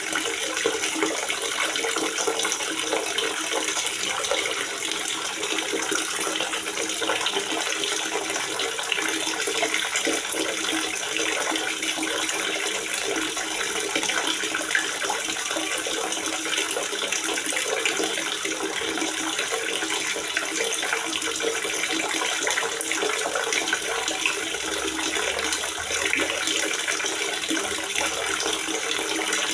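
Water gurgling steadily in a water reservoir, a continuous splashing flow with no pauses.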